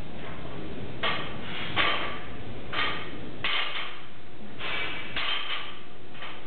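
A lifter straining through heavy paused incline barbell press reps, with a series of short hissing breaths over a steady background hum.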